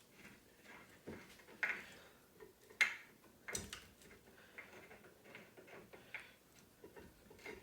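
Irregular metallic clicks and knocks as a caliper mounting bracket bolt is fumbled against the steel bracket and steering knuckle, trying to line it up with its threaded hole. There are a few sharper knocks, and small ticks in between.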